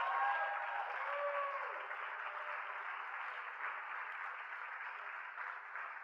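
Recorded applause, a crowd clapping in a dense, even patter, slowly getting quieter.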